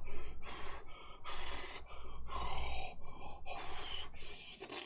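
A person's voice in a run of short, breathy, whisper-like bursts, irregularly spaced.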